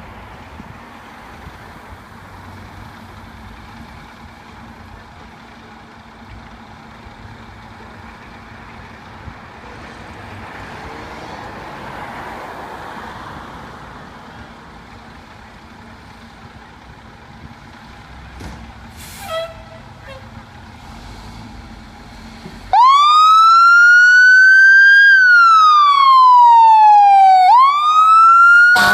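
Low, steady traffic and engine rumble, then about 23 seconds in a fire truck siren starts suddenly and very loud. It rises in pitch, falls slowly, and rises again in a wail.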